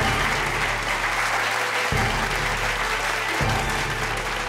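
Dinner audience applauding steadily over background music, with a low bass note that comes back every couple of seconds.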